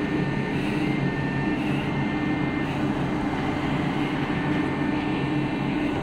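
Steady drone of a ship's engines and machinery: an even, unbroken hum with a constant low pitch.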